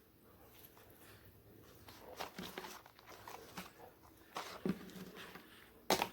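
A person eating close to the microphone: soft wet chewing and mouth smacks come as irregular short clicks, and the sharpest one is near the end.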